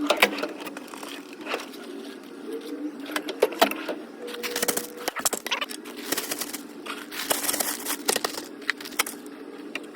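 Small metal tools and loose parts clinking and clattering as they are picked up and moved around in a toolbox drawer, with a couple of short rustling bursts, over a steady low hum.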